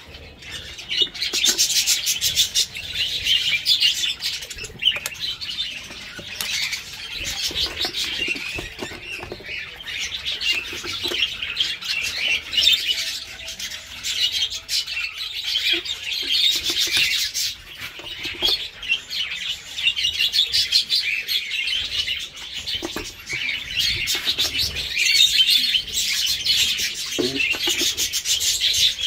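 Budgerigars chattering and chirping without a break, many birds overlapping in a dense, high warble.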